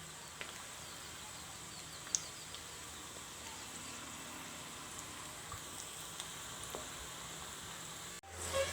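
Bread balls deep-frying in oil: a steady sizzle with small scattered pops and one sharper pop about two seconds in. Near the end the sizzle cuts off abruptly and a low hum begins.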